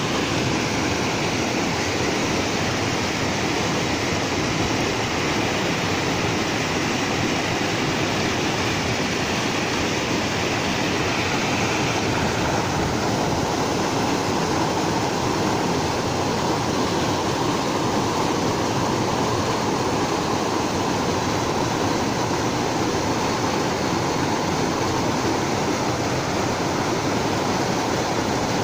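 Rocky river cascade: white water rushing steadily through a narrow chute between boulders, its tone shifting slightly about twelve seconds in.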